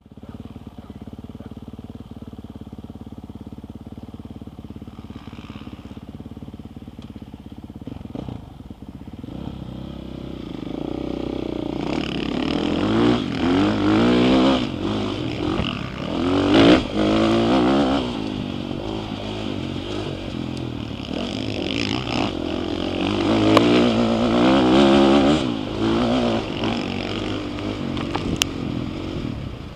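Dirt bike engine heard from the rider's helmet camera: idling steadily for about ten seconds, then revving up and riding off, its pitch rising and falling again and again.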